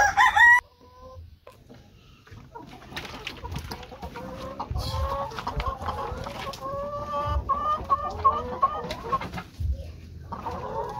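Laying hens clucking in a coop: a brief loud call right at the start, then from a couple of seconds in a busy run of short, repeated calls.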